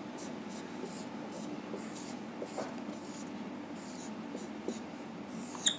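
Marker pen writing on a whiteboard: a run of short, faint scratching strokes as letters are written, with one brief sharper click near the end.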